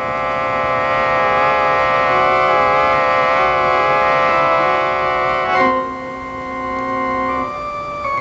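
Organ music cue: sustained chords with a wavering vibrato, moving to a new, softer chord about two-thirds of the way through and shifting again near the end.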